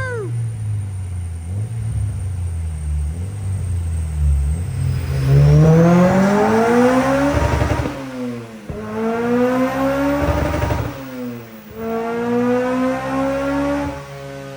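Honda Civic EP3 Type R's K20 four-cylinder engine on the dyno rollers. It runs low and steady at first, then accelerates up through the gears: its pitch climbs, drops sharply at an upshift about eight seconds in and again around eleven and a half seconds, then climbs again each time.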